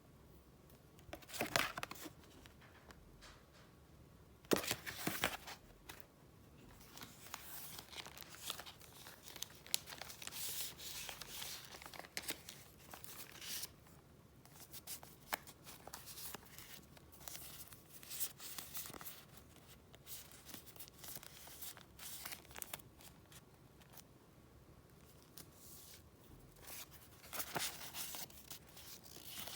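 Paper and wrapping being handled close up: irregular crinkling and rustling, with two louder bursts about one and a half and four and a half seconds in.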